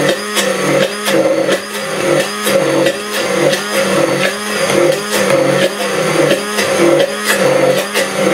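Electric immersion blender running in a glass jar of oil and egg, emulsifying it into mayonnaise. The motor's pitch dips and recovers about twice a second, with the load changing as the blade works through the mix.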